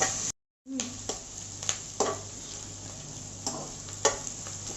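Sliced onions frying in butter in a kadai, sizzling steadily as they are stirred, with a spatula knocking and scraping against the pan now and then. The sound drops out for a moment just after the start.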